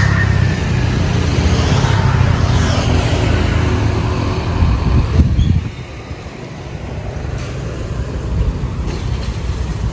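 Motor vehicle engine and road traffic noise, loud and steady, with a sharp bump about five seconds in, after which it drops to a quieter traffic hum.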